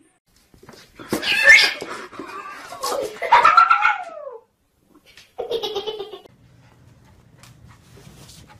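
Kitten yowling: two long, loud cries that slide down in pitch, then a shorter cry about a second later, followed by a faint low hum.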